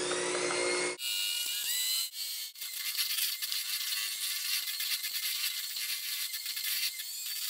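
Electric mixer motor running with a rising whine for about a second, then cut off abruptly by an edited-in sound effect: a few rising tones followed by fast, dense rattling.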